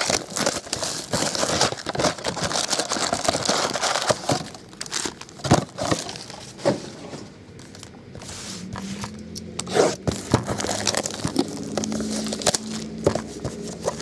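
Plastic wrapping of a sealed trading-card box and its foil packs crinkling and tearing as the box is opened and the packs are handled, with sharp clicks and taps. The handling is busiest at first, eases off for a couple of seconds past the middle, then picks up again.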